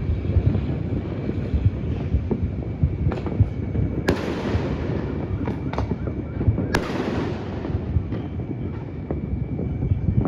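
Fireworks going off: a dense run of distant bangs and thuds, with two loud, sharp bangs about four and seven seconds in, each followed by a hiss that fades over a second or so.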